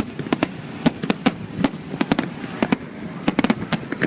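Fireworks display: a rapid, irregular string of sharp cracks and bangs, about five a second.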